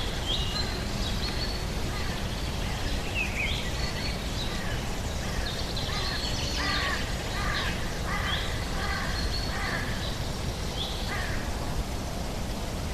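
Outdoor ambience: birds giving many short calls over a steady low background rumble, the calls busiest in the middle stretch.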